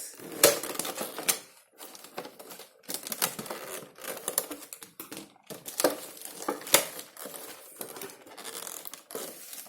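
Headset packaging being opened by hand: irregular sharp plastic clicks and taps with short rustles of cardboard and plastic, a few clicks standing out louder.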